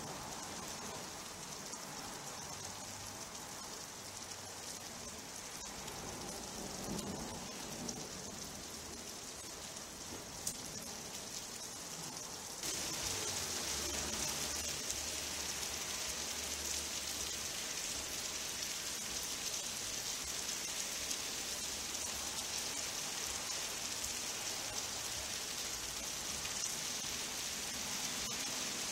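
Steady rain falling during a summer thunderstorm, a continuous patter. It gets abruptly louder about thirteen seconds in and stays heavier from then on.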